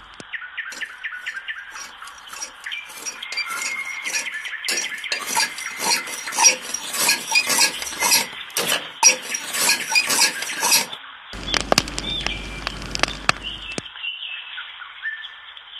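Irregular metallic clicking and clinking from a homemade motor-driven rotisserie spit turning over a barrel fire, densest in the middle, with a low hum about three quarters of the way through.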